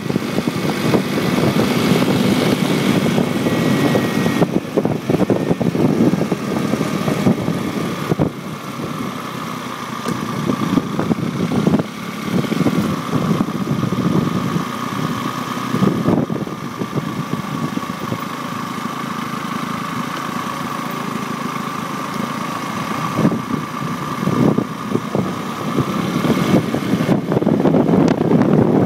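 Engine of a handlebar-steered vehicle running under way, with wind buffeting the handlebar-mounted microphone. A steady whine runs through it, and the noise eases off in the middle and builds again near the end.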